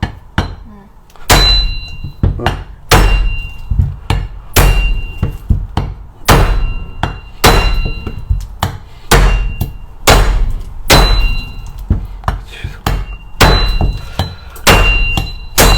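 Heavy steel bone-chopping cleaver struck hard again and again into something very hard, about a dozen blows spaced a second or so apart. Each blow is a loud chop with a short metallic ring after it.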